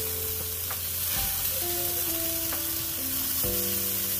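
Meat sizzling on an outdoor grill, a steady hiss, with music in the background whose held notes step from one pitch to the next.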